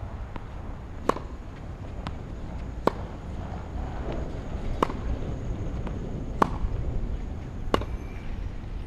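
Tennis rally: a tennis ball struck back and forth with rackets, five sharp strikes about every one and a half to two seconds, with fainter ball bounces between them, over a low steady rumble.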